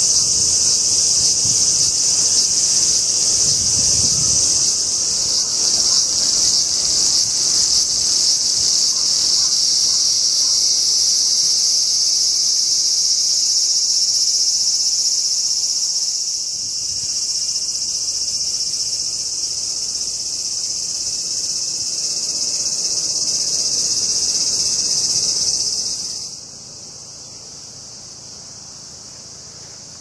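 A steady, high-pitched chorus of insects, dropping sharply in level about 26 seconds in.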